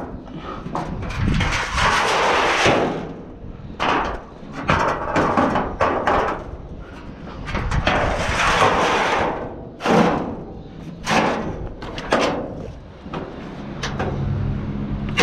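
Car-carrier truck's perforated metal loading ramps being handled: two long scraping slides of metal on metal, with several sharp clanks and knocks as the ramps are pulled out, set down and pinned in place.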